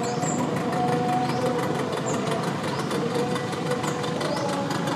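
A motor engine running steadily, with the faint held notes of the royal barge boat-song chant behind it.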